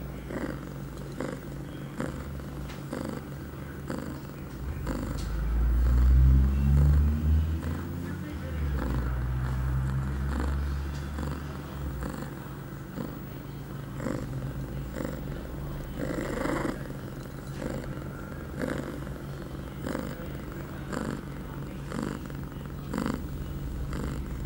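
Ragdoll queen in heat purring steadily close to the microphone, with a soft pulse about once a second. The purr grows much louder and deeper for several seconds about five seconds in.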